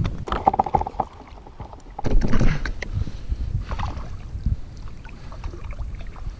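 Handling noise on a plastic kayak as a fish is held alongside: knocks against the hull and water splashing, loudest about two seconds in, with a short squeak about half a second in.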